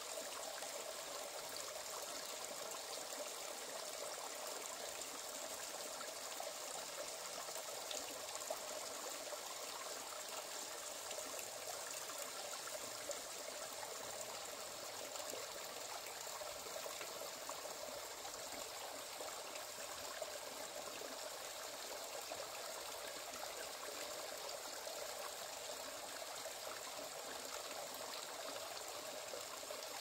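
Small mountain stream trickling and babbling over rocks into a shallow pool, a steady sound with a few faint drips standing out.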